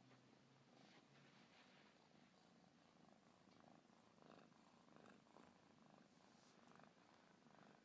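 A kitten purring faintly.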